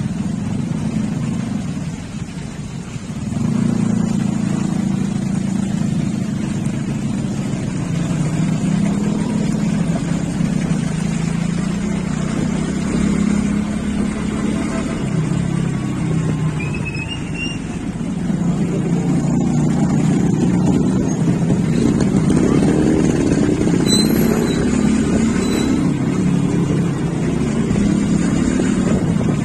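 Motorcycle engine running while riding, heard from the bike itself, its pitch rising and falling with the throttle over road and wind noise. It eases off briefly a couple of seconds in, then picks up again, and eases once more around the middle.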